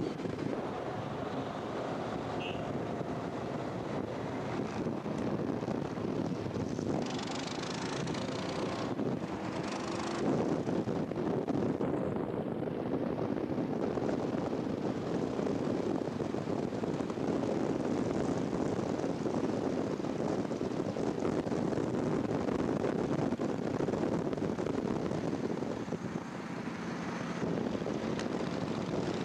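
Vehicle engine running steadily while moving, with wind rushing over the microphone; the rush swells briefly about seven and ten seconds in.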